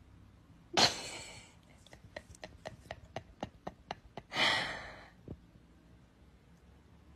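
A dog breathing hard through its nose: a sharp huff, a run of about a dozen quick sniffs, then a second long huff.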